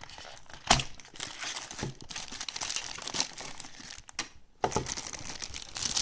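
Packaging wrapper crinkling and rustling as a boxed unit is handled and unwrapped. There is a sharp crackle under a second in and a brief lull around four seconds.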